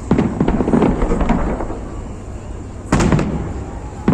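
Fireworks bursting overhead: a loud bang just after the start, followed by a dense run of crackling, then another loud bang near the end.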